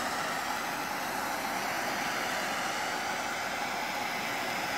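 Handheld gas torch burning with a steady hiss.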